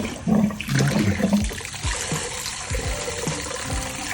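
Water running from a kitchen sink tap and splashing over a small dog in the sink, with a few low thuds of water and handling. This is the rinse at the end of a shampoo bath.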